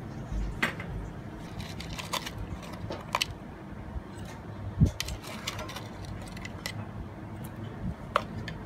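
Scattered light clinks and knocks of a metal spoon against a jar and a stainless steel pot as palm sugar is scooped out and dropped in, with a dull thump about halfway. A steady low hum runs underneath.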